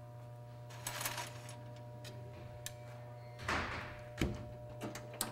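Low-hydrogen stick electrodes being taken out of a portable electrode oven by a gloved hand: a few short rattles and rustles and one sharp click over a steady low hum.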